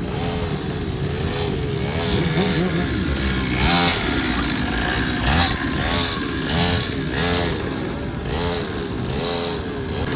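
Motorcycle engines revving, the pitch rising and falling over and over, with several louder surges.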